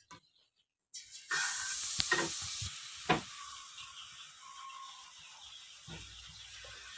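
Batter on a rosette iron frying in hot oil: a loud sizzle starts about a second in and slowly dies down. Two sharp clicks come partway through.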